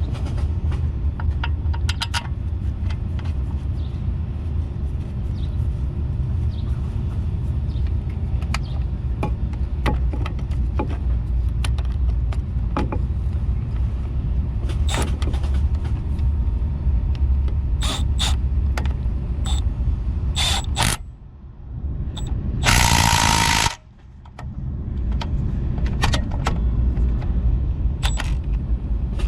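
A steady low rumble like a running engine, with scattered clicks and knocks. Near the end comes a loud burst of about a second from a cordless right angle impact wrench running, set off by brief drops in the sound before and after.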